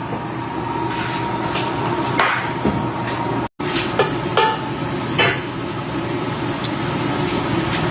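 Several sharp taps and knocks on a hard kitchen surface, spread irregularly over the first five seconds, above a steady hiss. The sound cuts out completely for a split second about halfway through.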